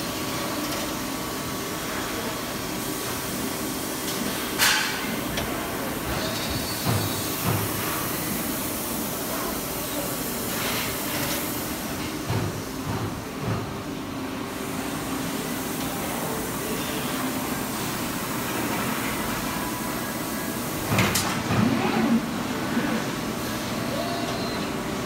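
Robotic press-brake cell and shop-floor machinery running with a steady hum. There is a sharp metallic clank about five seconds in and a cluster of clanks and knocks near the end.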